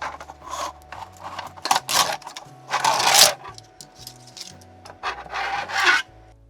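3D-printed plastic rip fence being pushed and slid onto a band saw table: several loud scraping, rubbing strokes of plastic against the table, with quieter clicks between them, stopping abruptly near the end. Soft background music underneath.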